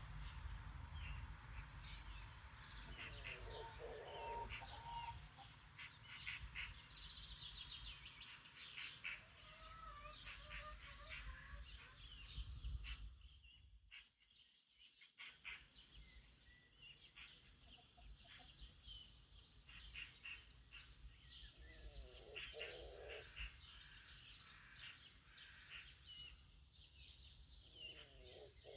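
Faint birdsong: many short, high chirps from small songbirds throughout, with a few brief lower calls from chickens. A low rumble sits under the first half, and the sound drops out briefly about halfway through.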